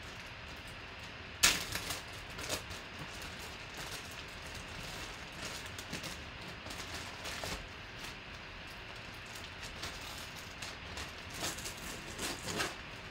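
Crinkling and rustling of a clear zip-top plastic bag being handled and pulled open, with one sharp snap about a second and a half in and a cluster of crinkles near the end.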